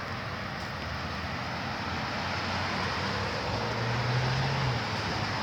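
Road traffic passing close by: tyre and engine noise from a passing car swells to a peak about four seconds in, then eases.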